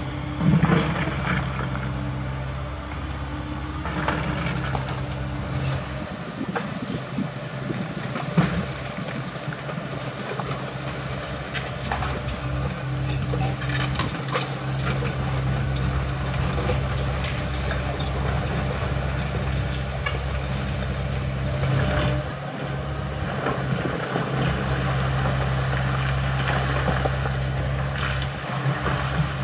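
CAT 307E mini excavator's diesel engine running with a steady low drone, with scattered clanks and scrapes as the bucket works through rocky gravel.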